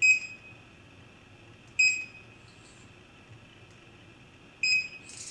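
Handheld Bluetooth QR code scanner beeping three times, each a short high beep that confirms a successful read of a drawer label's QR code. The beeps come about two and three seconds apart.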